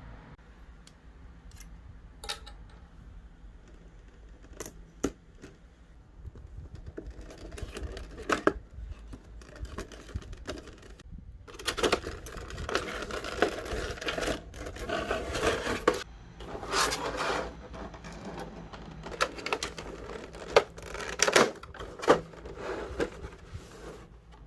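Figure packaging being handled and opened: scattered clicks and taps, then several seconds-long bouts of rustling and tearing in the second half.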